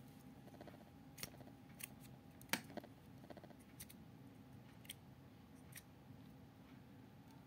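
Near silence broken by a few short sharp clicks and taps, the loudest about two and a half seconds in: a small AVC DFTA0456B2U fan's plastic housing being handled and turned in the hand, the fan itself not running.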